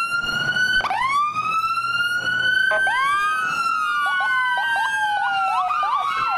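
Electronic sirens of a Falck Ford ambulance and Long Beach Fire Rescue 18 pulling out code 3. A wail is started twice, rising each time, then a second siren joins about three seconds in. One wail falls slowly while the other switches to quick rising yelps, several a second.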